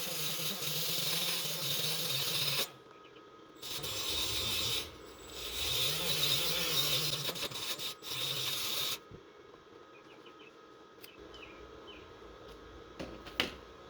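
Angle grinder grinding a practice weld bead on steel: a harsh, hissing grind in four passes of one to three seconds each, the motor's hum wavering under load. It stops about nine seconds in, and a single click follows near the end.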